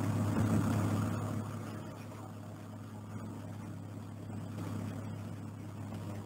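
Hard-lead graphite pencil shading lightly in small circles on drawing paper, under a steady low hum that is the loudest sound.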